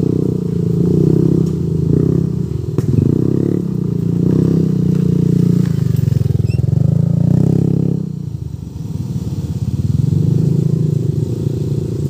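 Street-bike motorcycle engine running under way, its note swelling and easing with the throttle. It drops off briefly about eight seconds in, then picks up again. There is a single sharp knock about three seconds in.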